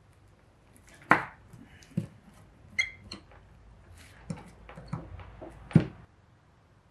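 Screwdriver working the non-return valve loose from a Dellorto DHLA carburetor's accelerator-pump cover housing: a string of irregular small metal clicks and knocks, one with a short ring, stopping shortly before the end.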